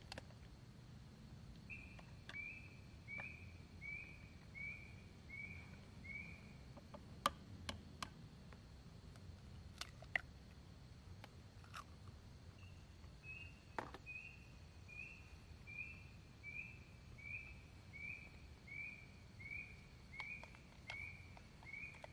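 A bird sings a run of evenly spaced, high whistled notes, each slurring down, about one and a half a second. It stops, then starts a second, longer run about halfway through. In between, a few sharp clicks and taps come from eggs and their plastic carrier being handled and cracked into a plastic tub.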